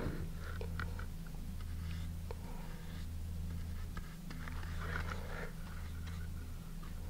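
Faint soft scratching and small clicks of a paintbrush dabbed in a can of dark wood stain and brushed onto balsa wood, over a steady low electrical hum.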